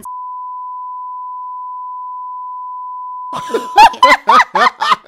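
A censor bleep: one steady, high, pure tone lasting nearly four seconds that covers a swear word, then cuts off as laughter and talk break in over its end.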